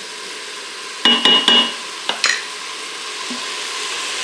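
Chopped onion, green bell pepper and celery sizzling on sauté in a stainless steel Instant Pot inner pot, sweating until soft, while a wooden spoon stirs them. About a second in comes a quick run of ringing knocks from the spoon striking the steel pot, with a couple more just after.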